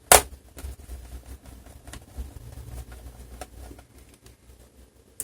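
Screwdriver work on the plastic underside of an HP Pavilion 15 laptop as its case screws are taken out: a sharp click near the start, then about four seconds of low rubbing and rattling with small clicks, and one more click at the end.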